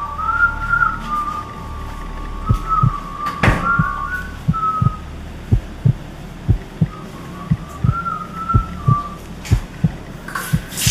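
A person whistling a slow, wavering tune in two phrases, over low thumps like a heartbeat that come about twice a second. There is one sharp knock about three and a half seconds in.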